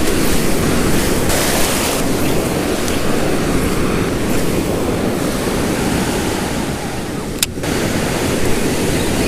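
Ocean surf washing up on a sandy beach, a steady rush with wind buffeting the microphone. A single sharp click sounds about seven and a half seconds in.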